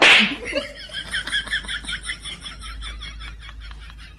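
A high-pitched laugh sound effect. It opens with a sharp burst, then runs as a quick, even string of short 'ha' pulses that fade away.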